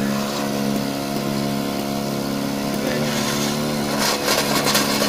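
Small fuel-powered engine of a homemade mini tracked excavator running steadily. About four seconds in, a rattling clatter joins in as the machine moves.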